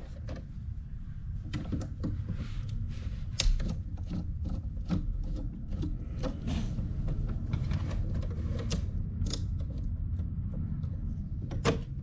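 Scattered small clicks and taps as hands and meter test leads work among the breakers and wiring of an open residential breaker panel, over a steady low hum.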